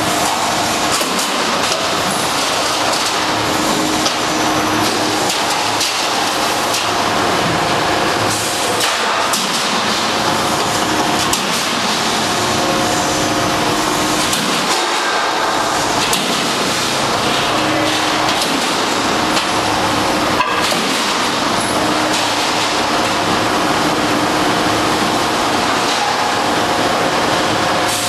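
Two-wave W-beam guardrail roll forming machine running, with steel strip feeding through its roller stations: a steady mechanical din with faint hums coming and going and one sharp knock about two-thirds of the way through.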